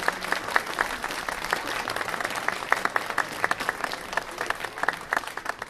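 Crowd applauding, many hands clapping, easing off near the end.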